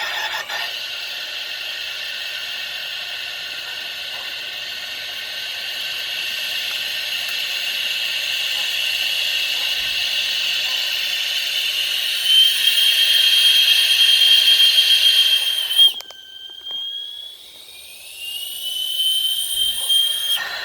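Compressed air hissing steadily. A high whistle comes in about twelve seconds in and cuts off suddenly a few seconds later, followed by a quieter whistle rising in pitch.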